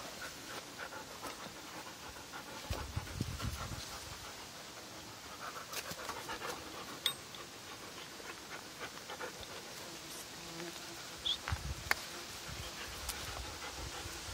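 A dog panting, with scattered small clicks and rustles.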